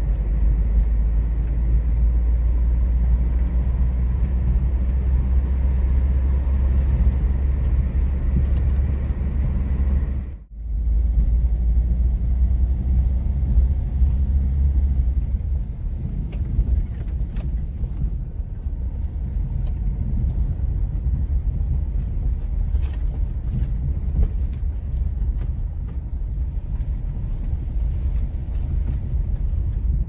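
Cabin noise of a car driving: a steady low rumble of engine and tyres, with a brief break about ten seconds in. From about sixteen seconds in, on an unpaved dirt track, the rumble eases and scattered light clicks and knocks come from the tyres and suspension.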